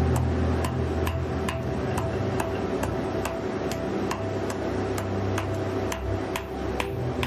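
A hand hammer strikes a red-hot steel bar on a block anvil in a steady rhythm, about two blows a second.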